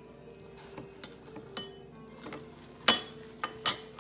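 Clinks and knocks of a ceramic bowl being hit as a gloved hand presses and turns chicken in its coating mix, a few light taps and then a sharp clink about three seconds in followed by two more.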